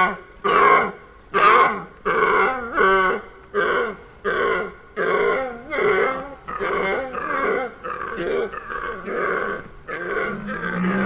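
A farm animal calling in a long, regular series of loud, pitched calls, about one every three-quarters of a second, gradually weakening and ending in a longer held note.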